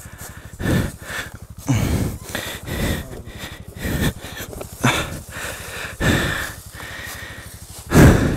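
A person's heavy breathing and grunts of effort, a short breath about once a second, from the strain of lifting a motorbike by hand.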